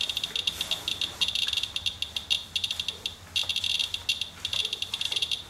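Radalert Inspector Geiger counter chirping rapidly and irregularly, one high beep per count, with brief lulls about three seconds in. The fast count rate reflects a reading of about 0.34 to 0.36 mR/hr from a rain-wiped sample, which is roughly 35 times background and called pretty hot.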